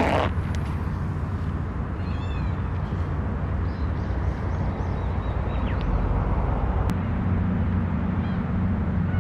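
A tent door zip stops being pulled right at the start. After it come several short calls from gulls in little runs, over a steady low rumble of wind and surf.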